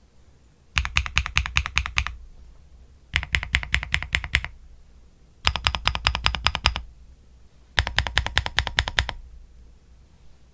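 Epomaker TIDE49 keyboard being typed on in four short bursts of rapid, evenly paced keystrokes, with brief pauses between the bursts.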